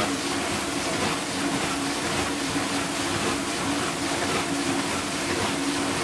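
Vintage KitchenAid Superba KDS-15 dishwasher running a wash cycle: a steady motor and pump hum under the constant rush and splash of water spraying over the racks and dishes and against a clear plastic shower curtain that stands in for the door.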